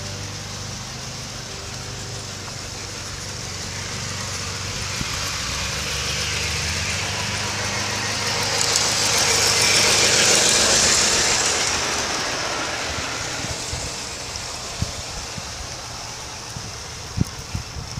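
Garden-railway model train running along its track, heard from on board: a steady low motor hum and a rolling hiss that swells to its loudest about halfway through, then eases off, with a few sharp clicks near the end.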